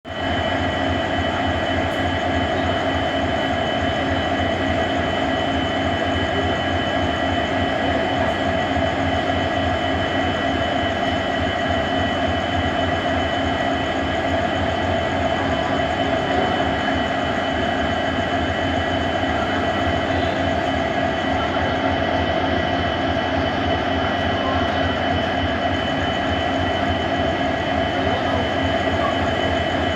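Twin EMD diesel-electric locomotives humming steadily at standstill, engines idling while held at a signal, with a constant high whine over the low drone.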